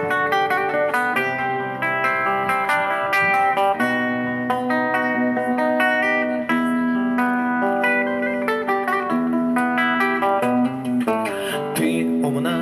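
Hollow-body electric guitar playing an instrumental break between sung verses: a run of picked melody notes over ringing lower notes.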